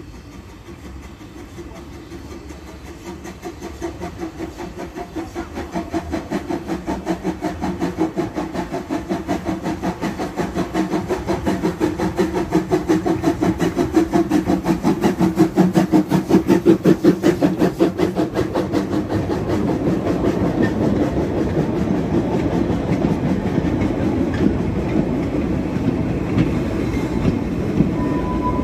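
1944 Peckett & Sons 0-6-0 saddle tank steam locomotive approaching and passing close by, its steady exhaust chuffs growing louder up to about halfway. After that its train of goods wagons rolls past with a continuous rumble and clickety-clack over the rail joints.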